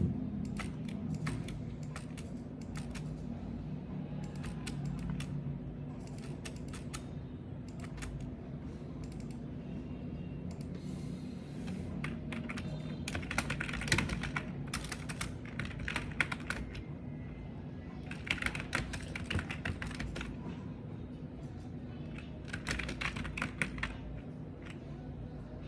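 Typing on a computer keyboard, key clicks coming in quick runs with short pauses between them, over a steady low background hum.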